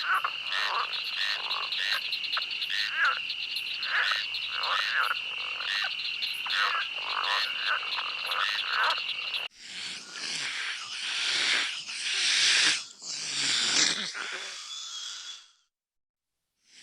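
Animal calls: a chorus of short, repeated calls over a steady high-pitched trill. About nine seconds in, it switches abruptly to louder, harsher calls, which stop shortly before the end.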